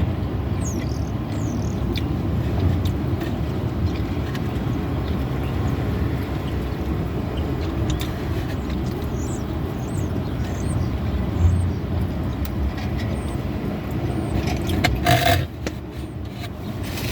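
Steady low rumble of a vehicle engine running, with faint high chirps now and then and a short burst of noise about fifteen seconds in.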